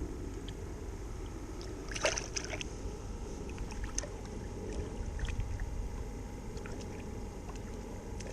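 A steady low rumble with wind and water noise, typical of being out on a boat, with a brief clatter of clicks about two seconds in and a few faint ticks later.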